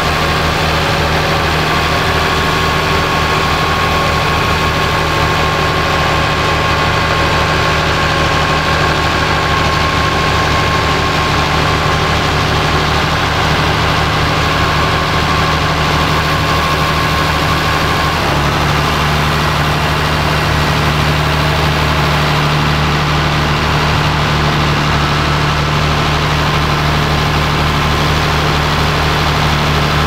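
Ford 8730 tractor's six-cylinder turbo diesel engine running steadily under load while pulling a reversible plough through stubble. The engine note shifts slightly about eighteen seconds in.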